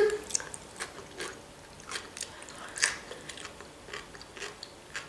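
A person chewing food with the mouth full: soft, wet mouth clicks and small crunches, scattered irregularly.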